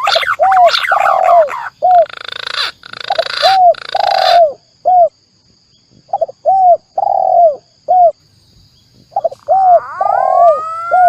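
Spotted dove (tekukur) and green pigeon (punai) calls from a bird-lure track. Short arched coo notes repeat in runs with brief pauses. Falling whistles come at the start, and a rising whistle sweeps up near the end. A hissy, rasping passage sits between about two and four and a half seconds in.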